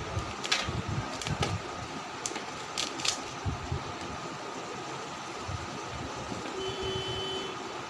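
A box cutter slitting the plastic seal of a cardboard smartphone box, a handful of sharp crackly clicks in the first three seconds, then the box being handled open. A steady fan-like hum underneath throughout, with a brief faint tone near the end.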